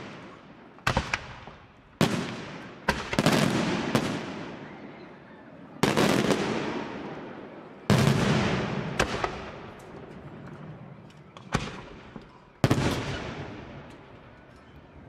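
Aerial firework shells from a Senatore Fireworks display bursting overhead, a sharp bang every one to two seconds. Each bang is followed by a long echoing tail that fades away.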